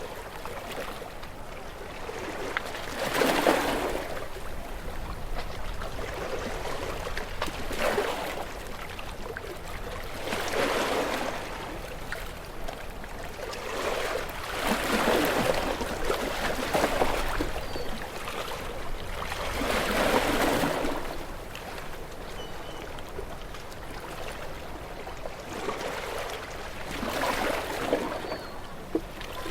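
Sea waves washing against shore rocks, with a surge of rushing water every few seconds, about seven in all.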